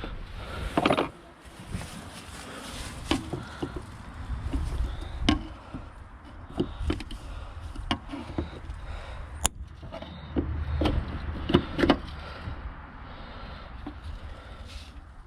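Irregular knocks, clicks and clatter of hand tools and parts being worked loose on a van's front end.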